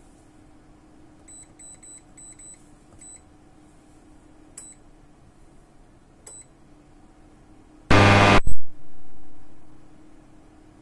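Digital control panel of an ultrasonic cleaning bath beeping briefly at each button press while the timer and temperature are set: about ten short high beeps, several in quick succession. About eight seconds in comes a loud harsh buzz lasting about half a second, over a faint steady hum.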